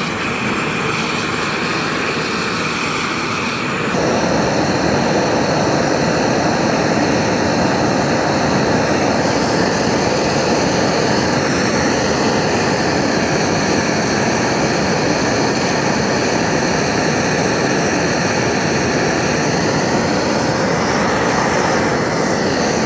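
A flamethrower's gas burner jetting a blue flame, a loud steady rush that gets louder about four seconds in as it is turned up.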